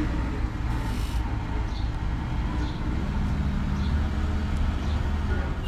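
A truck's engine running close by, a steady low rumble, with a brief hiss about a second in.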